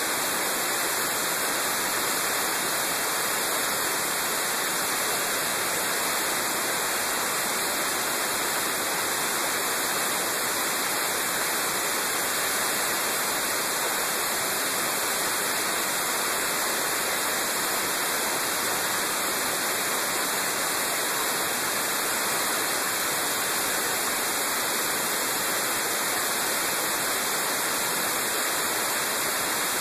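Steady, even, hissing rush of wind noise on a motorcycle-mounted camera at road speed. It is mostly high-pitched and unchanging, and no engine note comes through it.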